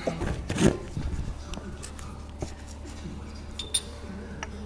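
Metal parts being handled, giving a few scattered clinks and knocks, the loudest about half a second in and a couple of sharp clicks near the end.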